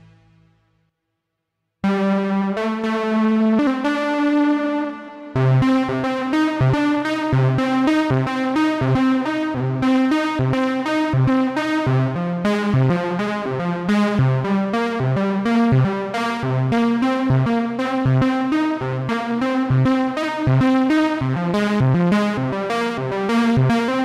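GForce Oberheim SEM software synthesizer playing its "Frayed Wire" preset. Held notes come in about two seconds in. From about five seconds a fast repeating pattern of short, bright notes plays over a pulsing bass line.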